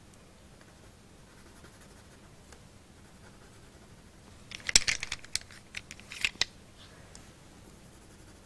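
Coloured pencil on paper: a quiet stretch, then about halfway through a couple of seconds of sharp scratchy strokes and clicks.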